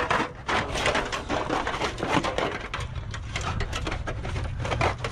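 Thin sheet aluminum crackling and rattling as the pieces are picked up and handled, a dense run of irregular crinkles and clicks.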